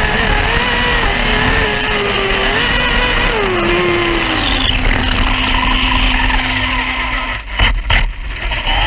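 Whine of an Arrma Typhon RC drag car's Castle 1717 brushless motor and drivetrain at full speed, mixed with rushing wind. The pitch holds, then falls away about halfway through as the car slows after the pass. A few sharp knocks come near the end.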